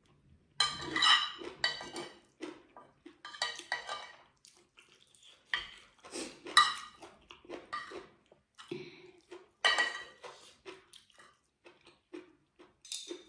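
Metal spoon and fork clinking and scraping on a ceramic plate in several short bursts, with quiet gaps between.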